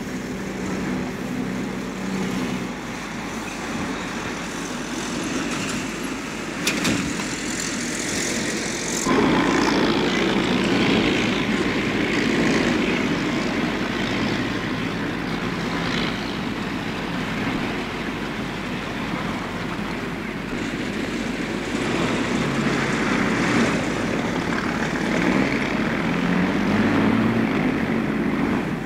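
City street noise from an old reel-to-reel tape: motor traffic with engines running and passing. There is a sharp knock about seven seconds in, and the traffic grows louder at about nine seconds.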